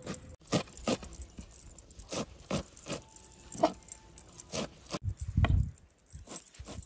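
Knife chopping fresh dill on a wooden cutting board: sharp, uneven chops about two a second, with a low thump about five seconds in.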